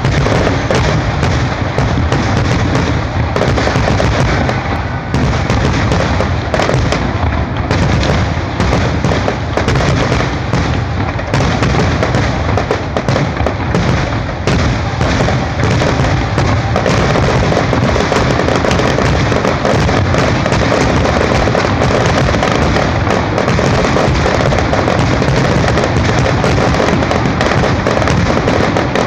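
Fireworks display: aerial shells bursting in a rapid, near-continuous barrage of booms, growing denser from about halfway through.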